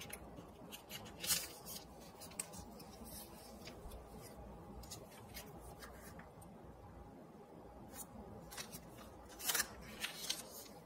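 Origami paper handled and creased by hand: faint rustling with a few short, sharp paper crackles, the loudest about a second in and near the end.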